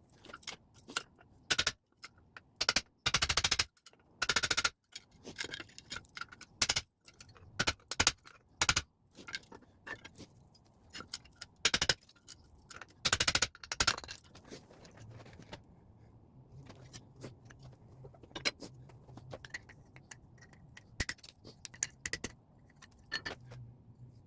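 Hammer strikes on a punch driving the handle pins out of an antique cleaver: a series of sharp metallic hits, some in quick clusters, with lighter clinks and scrapes of metal between.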